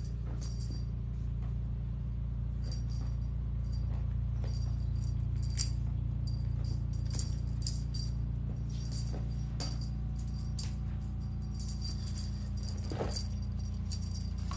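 Small jingle bell shaken in short, irregular jingles as cats play with a wand toy, over a steady low hum.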